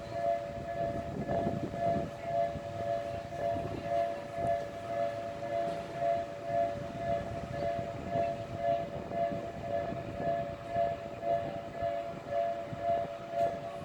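Japanese railway level-crossing warning bell ringing: an electronic two-tone ding repeating steadily, with a low rumble beneath it.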